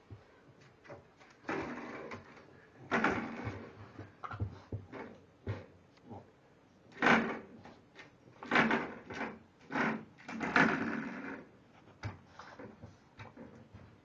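Spring doorstop being batted and bitten by an English Bulldog puppy, rattling and twanging in irregular bursts, the loudest in the second half.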